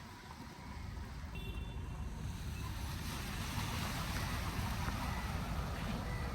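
Floodwater rushing through a street: a steady noisy wash with a low rumble that grows louder about a second in.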